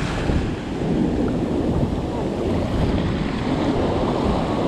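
Ocean surf breaking and washing up over the sand, a steady churning wash, with wind buffeting the microphone.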